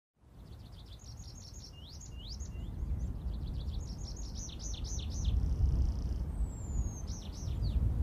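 Songbirds singing: bursts of quick, high chirping runs, with one thin falling whistle about two thirds of the way through. A low rumble sits underneath and grows louder.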